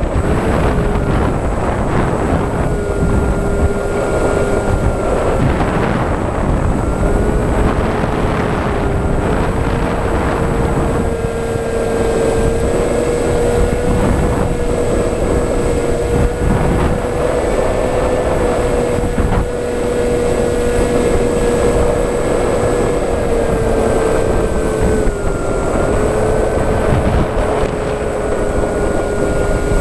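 Electric motor and propeller of an FPV model aircraft running steadily, its whine stepping up and down in pitch with throttle changes, under heavy wind rush on the microphone.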